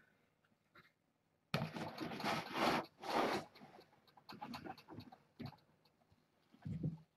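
Kittens playing and scuffling on a rug and against a small cardboard box. A burst of loud scratchy rustling starts about a second and a half in and lasts about two seconds, followed by lighter scattered scuffs and taps.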